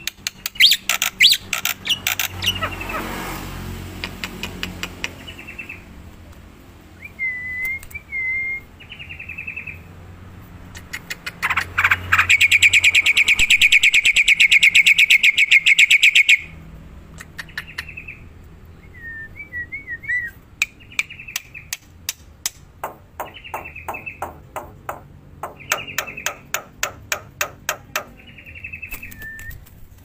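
Caged black-winged myna (jalak putih) singing loudly: rapid runs of sharp clicking notes and short warbled whistles, with a long fast rattling trill about halfway through.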